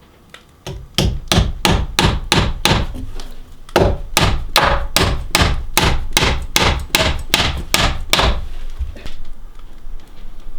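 Hammer striking wood in steady blows, about three a second, in two runs with a short pause about three and a half seconds in. Fainter knocks follow near the end.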